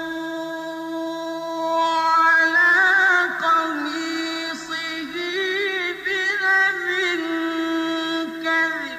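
A male Quran reciter's voice in melodic recitation, holding one long note that turns into a wavering, ornamented melismatic run and breaks off near the end.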